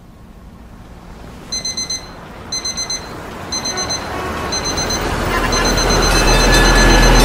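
Digital alarm beeping in quick bursts of four, about one burst a second, the bursts running together into almost constant beeping after about five seconds. Beneath it a low droning noise swells steadily louder.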